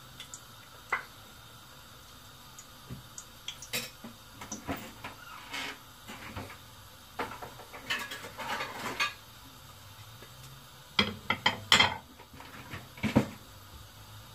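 Kitchen clatter: a spatula knocking and scraping in an aluminium pot and dishes being handled, in scattered clinks and knocks with a louder run of them near the end.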